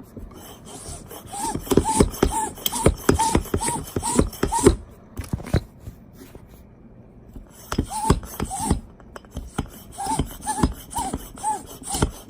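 Audew mini bicycle hand pump being worked in quick strokes, about three a second, each stroke a short rubbing rush with a brief squeak. Two runs of pumping with a pause of about two seconds between them.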